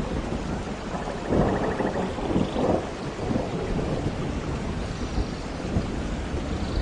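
Thunderstorm in a forest: steady heavy rain with thunder rumbling, swelling loudest about a second and a half in.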